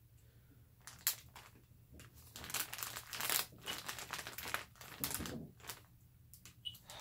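Plastic packaging crinkling and rustling as it is handled, in irregular spurts of crackle that are busiest from about two and a half to five seconds in.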